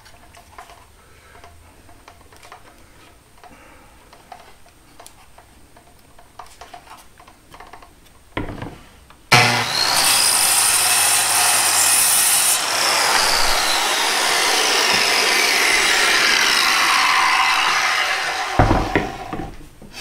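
A corded Milwaukee circular saw with a Freud Diablo blade starts about nine seconds in and crosscuts a wooden board for about nine seconds, its whine falling in pitch as the cut goes on. The trigger is then released and the blade winds down. Before the cut there are only faint handling clicks.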